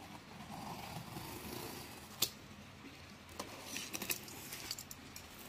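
A small blade slitting packing tape on a cardboard box: faint scratching along the tape, a sharp click about two seconds in, then a cluster of small clicks and scrapes a little before the end.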